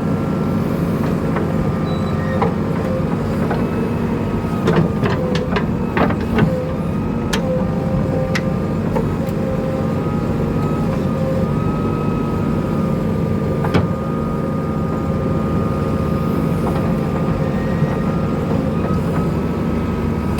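Heavy diesel machinery engine running steadily at an earthworks site. A few short sharp knocks come about five to seven seconds in.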